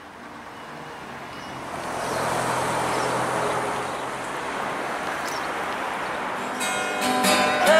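Steady road traffic noise that swells about two seconds in as vehicles pass; music comes in near the end.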